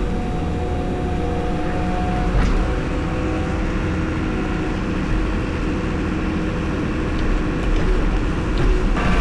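Engine of farm machinery running steadily with a heavy low rumble and a few steady tones. Near the end the sound turns brighter.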